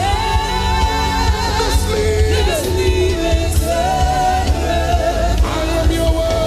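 Gospel worship music: a singing voice holding long, wavering notes over bass-heavy band accompaniment.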